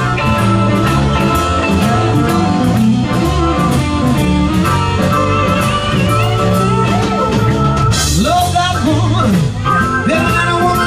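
Live blues-rock band playing: electric guitar with bent, wavering notes over bass and drums.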